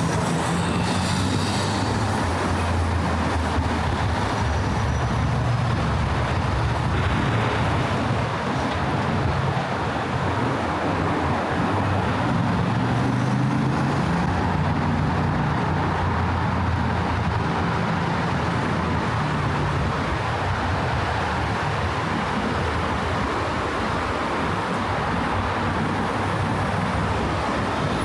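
Steady city road traffic: vehicle engines running and tyres on the road, making a continuous low drone with no breaks.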